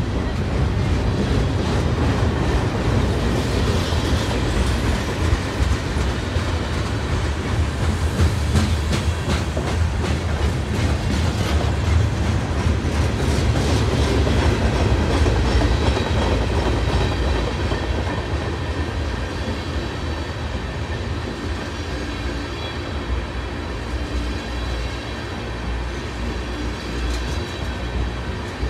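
Freight train of tank cars and covered hoppers rolling past: a steady low rumble of wheels on rail with rapid clicking and clacking over the joints, and a faint high wheel squeal at times. It eases a little past the middle.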